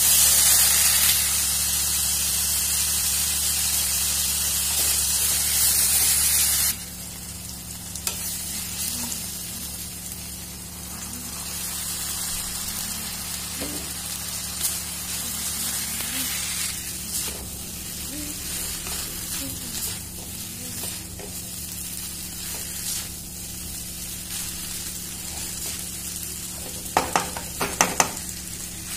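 Shredded cabbage and carrot sizzling in a hot oiled wok as they are stirred with a wooden spatula. About seven seconds in, the loud sizzle drops suddenly to a quieter frying hiss, and once the noodles are in, the spatula can be heard stirring, with a few sharp knocks against the wok near the end.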